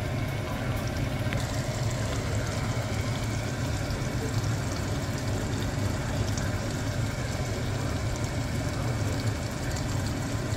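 Beef and sauce simmering in a wok, a faint bubbling crackle over a steady low hum.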